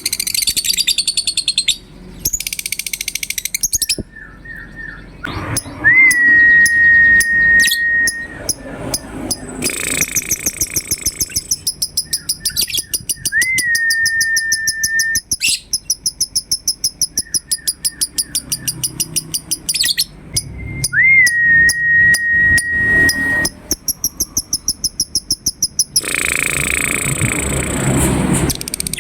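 Lovebird chattering in long, fast runs of sharp, high chirps, the rapid 'ngekek' song. Three times a single long whistled note rises and then holds level for about two seconds.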